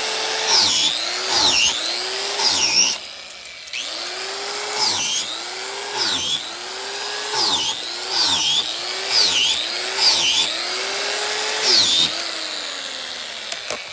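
Angle grinder fitted with a self-tapping wood-boring bit, drilling a row of holes into an oak log. Its high-speed whine drops in pitch about a dozen times as the bit pulls itself into the wood to cut each hole, then speeds back up as it is lifted out. There is a brief quieter pause early on, and the motor winds down near the end.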